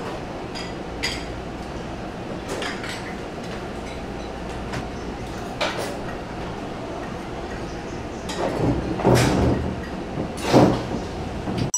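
Restaurant background noise: a steady hum with a few light clinks of spoons and dishes, and two louder noisy swells near the end.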